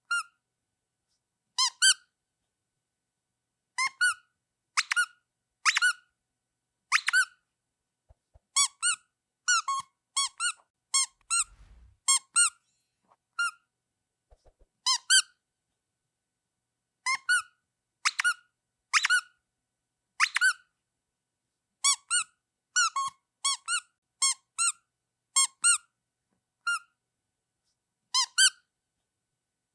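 Rubber duck squeak toy squeezed over and over: short, high squeaks coming singly, in quick pairs and in runs of three or four, with silent gaps between them.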